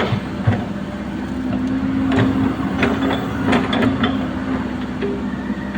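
Komatsu hydraulic excavator running, a steady engine hum broken by scattered sharp knocks and clanks.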